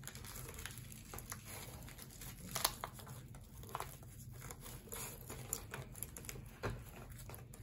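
Bamboo sushi rolling mat being squeezed and pressed around a maki roll: faint, irregular clicks and rustles of the bamboo slats, with a couple of louder clicks, one midway and one near the end.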